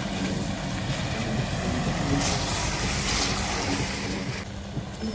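A vehicle engine running steadily with a low rumble and rushing road noise that swells for a second or so about two seconds in.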